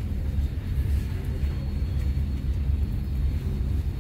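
Steady low drone of a passenger ship's engines and machinery carrying through the room, with a faint high steady tone above it.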